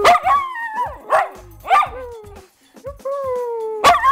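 A dog yelping and barking: a few short high yelps whose pitch drops away in the first two seconds, then one long whine sliding slowly down in pitch, cut off by another sharp bark near the end.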